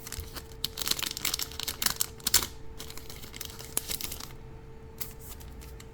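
Foil wrapper of a One Piece card booster pack crinkling and tearing as it is opened. There is a dense stretch of dry crackle about a second in, then shorter bursts near the end.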